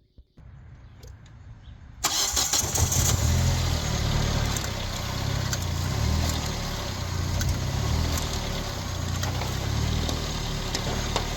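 A 2006 Hyundai Elantra's four-cylinder engine starts suddenly about two seconds in and settles into a steady idle. The start shows that the no-crank, no-start fault is cured by the new neutral safety switch.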